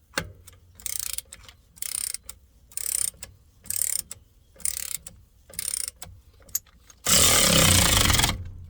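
Socket ratchet tightening an air fitting, with six short strokes about a second apart. Near the end comes a loud burst of noise lasting just over a second.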